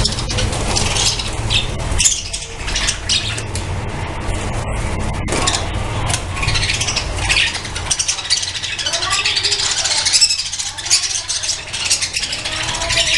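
A colony of budgerigars chattering and chirping continuously, with a low rumble underneath that fades out about two-thirds of the way through.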